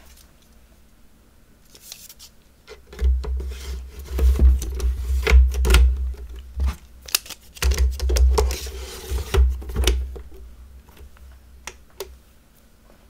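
3.5-inch hard drives being handled and slid into a NAS's drive bays: a busy run of plastic-and-metal clicks, scrapes and knocks over low thuds, followed by a couple of single clicks near the end.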